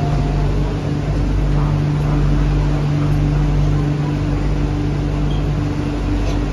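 Cabin running noise of an MTR CRRC Qingdao Sifang Q-Train electric multiple unit in motion: a steady rumble with a steady low hum and a fainter higher hum that cuts in and out.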